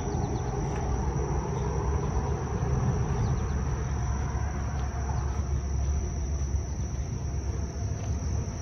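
A steady low rumble with a thin, continuous high-pitched insect drone above it.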